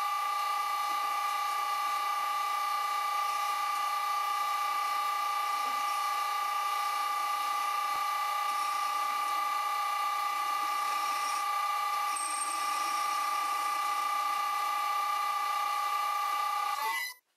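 Vintage Karger lathe running on its VFD-driven electric motor, giving a steady high-pitched whine of a few fixed tones while a point is turned. It cuts off sharply near the end.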